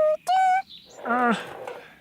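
Cartoon character singing: a held sung note ends about half a second in, then a short, gruff, low vocal note slides downward, an off-key attempt at copying a bird's tune.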